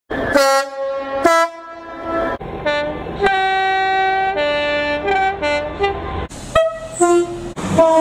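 Two-tone horns of British diesel trains sounding one after another. A Class 66 locomotive blows two long notes, then a Class 37 locomotive gives a longer run of alternating high and low notes over a low rumble, and another horn starts near the end.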